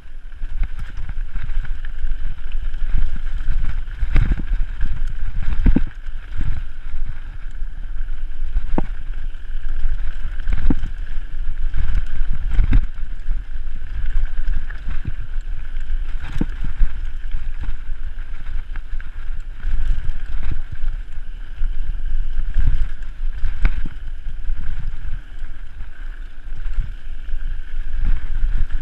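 Mountain bike descending a dirt singletrack at speed: wind noise buffets the microphone under a constant low rumble, with frequent knocks and rattles as the bike jolts over bumps in the trail.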